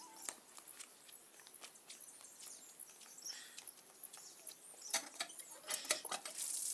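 Faint footsteps in slippers on brick paving, then from about five seconds in, sharp metallic clanks of a cast-iron hand pump's handle being worked.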